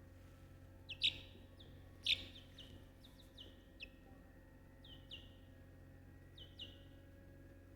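A small bird chirping: short, falling peeps repeated irregularly, the loudest about one and two seconds in, over a faint steady hum.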